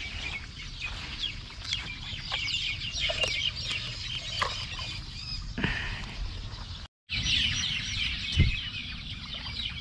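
A dense chorus of small birds chirping and chattering, many short calls overlapping, over a low rumble. The sound drops out for a moment about seven seconds in, and a short thump follows soon after.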